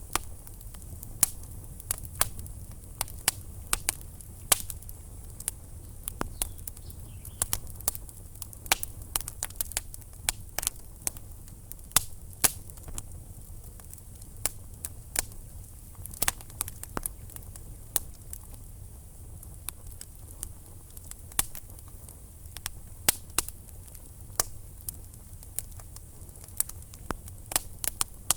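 Wood fire burning in a fireplace: logs crackling and popping in irregular sharp snaps over a low steady rumble of the flames.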